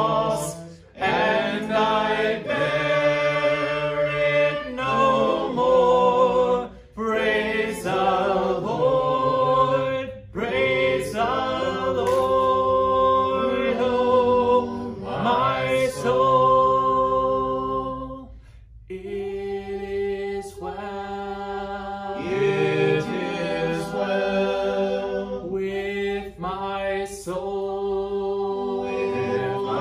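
Voices singing a hymn a cappella in harmony, in long held notes with short breaks for breath between phrases.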